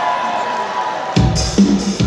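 Live concert music through a sound system. A held, orchestral-style passage of sustained tones gives way a little over a second in to a driving drum and bass beat.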